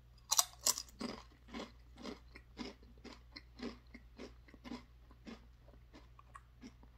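A ridged Lay's Wavy potato chip bitten with two loud crunches, then chewed with open-mouthed crunching about twice a second that grows fainter as the chip is chewed down.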